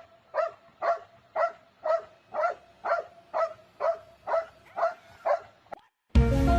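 A dog barking over and over in an even rhythm, about two barks a second, a dozen in all. Music cuts in just before the end.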